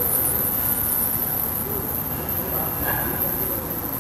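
A machine running steadily, with a constant high-pitched whine over a low, even hum.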